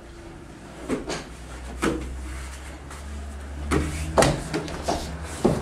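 Thuds and scuffs of two grapplers' bodies and gis hitting and shifting on foam dojo mats during a roll: a string of sudden knocks, more of them and louder in the second half, over a steady low hum.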